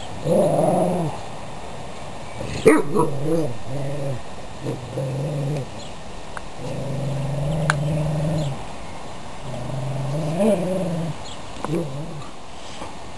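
Dogs play-growling while wrestling: several long, drawn-out growls one after another, with a short sharp bark-like sound about three seconds in.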